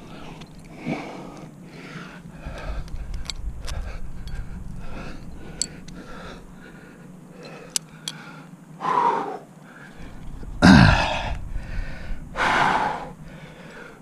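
A climber's heavy, laboured breathing under sustained effort, with loud strained gasps and a voiced grunt near the end. A couple of sharp clicks around the middle.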